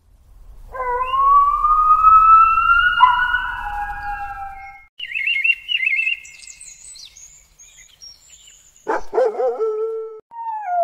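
Wolf howling: one long call that rises slowly in pitch for about four seconds. High chirping follows, then a second, shorter wavering howl near the end.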